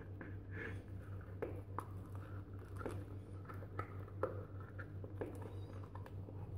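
Fingers working the strap and buckle of a patent leather stiletto sandal: faint, irregular small clicks and rubbing, over a steady low hum that cuts off suddenly near the end.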